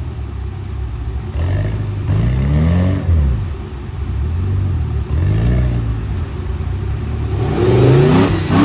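Off-road Toyota pickup's engine revving hard in three rising-and-falling surges as the truck bumps up a rock ledge.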